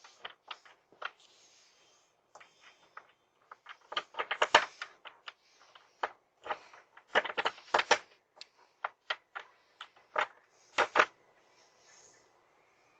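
Irregular series of sharp clicks and knocks, bunched into clusters, picked up by a doorbell camera's microphone.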